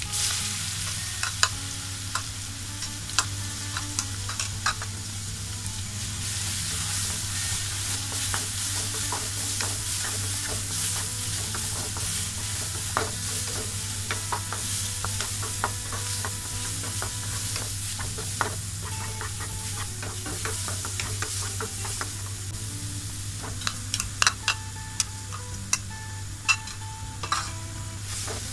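Crushed ginger and garlic frying in hot oil in a nonstick kadai, a steady sizzle. A wooden spatula stirs and scrapes through it, knocking sharply against the pan a few times in the first seconds and again in a cluster near the end.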